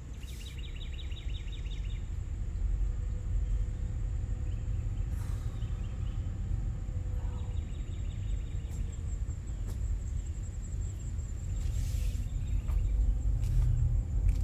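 Car driving slowly, a steady low road and engine rumble heard from inside the cabin. Faint rhythmic chirping sits high above it near the start and again about halfway through.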